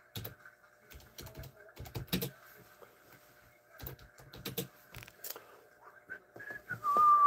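Computer keyboard typing in scattered short runs of key clicks, as spots are entered into a break list. Near the end comes a brief, louder high tone that drops in pitch and then holds.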